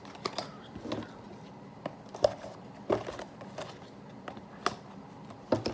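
Mini figurine packaging and plastic parts handled by hand: scattered light clicks, taps and short rustles, the sharpest about two seconds in and again near the end.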